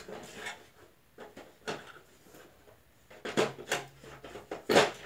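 Black plastic cabinet of a Symphonic CRT television being gripped and shifted on a carpeted floor. It gives a series of irregular knocks and clunks, the loudest just before the end.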